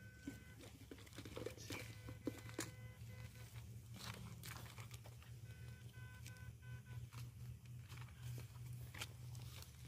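Rubber boots crunching and scuffing over loose brick and stone rubble in irregular steps. Under them run a faint steady low hum and brief high steady tones that come and go.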